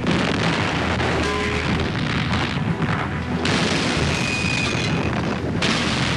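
Battle sounds: booms of explosions and artillery fire, with music under them.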